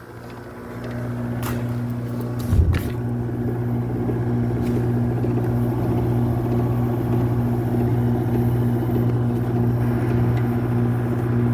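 RA51k window air conditioner running up: the sound climbs back over about a second, a single clunk comes about two and a half seconds in, then it settles into a steady low hum.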